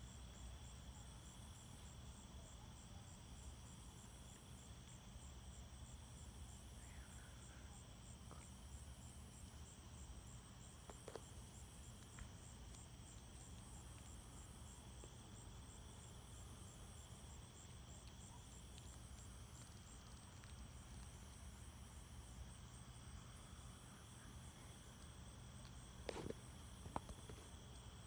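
Faint night chorus of crickets and other insects: several steady high trills, with a higher call pulsing about once a second. A couple of brief faint knocks sound near the end.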